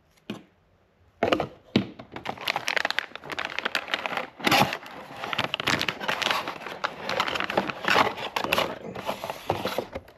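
Clear plastic packaging bag crinkling and crackling as it is handled and pulled out of a cardboard box. The crinkling starts about a second in and continues, with many sharp crackles.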